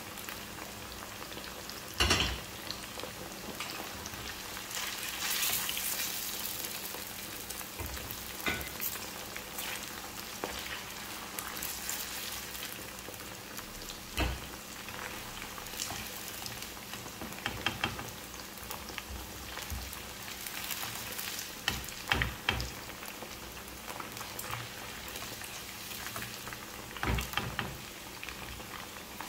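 Cornflour-coated chicken pieces sizzling steadily in hot oil in a frying pan. A few short knocks of a spatula against the pan stand out, the loudest about two seconds in.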